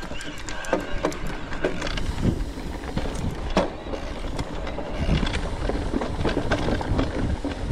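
Mountain bike riding noise on a dirt singletrack trail: tyres rolling over dirt and the bike rattling over bumps, with many sharp clicks and knocks. Wind rumble on the camera microphone underneath.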